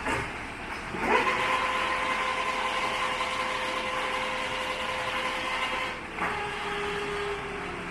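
Bullard vertical lathe running under power, its motor and gearing giving a steady whine over a mechanical hiss. About six seconds in the sound changes abruptly to a slightly lower whine.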